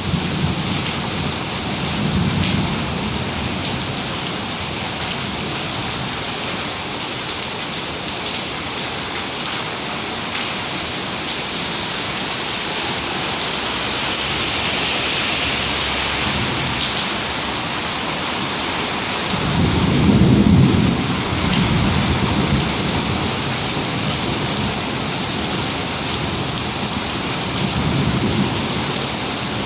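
Steady heavy rain falling, an even hiss, with low rumbles of thunder rolling in near the start, most strongly about two-thirds of the way through, and again near the end.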